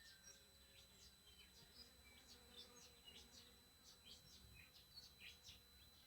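Faint, steady high-pitched squeal from a TriStar TS-MPPT-60 solar charge controller, with many short bird chirps over it.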